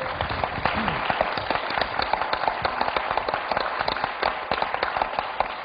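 A congregation applauding: dense, steady clapping from many hands.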